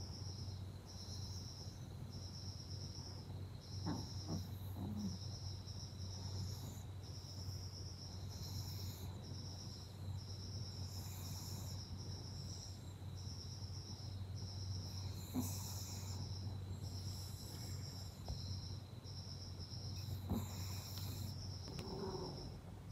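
Cricket chirping at a steady pace, about two short high chirps a second, over a low steady hum.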